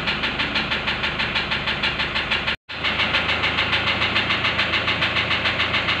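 Toyota Hilux diesel engine idling with a steady, even knock, about seven beats a second. It is the injector knock that a scan of injector feedback traces to a damaged number 1 injector. The sound drops out for an instant about two and a half seconds in.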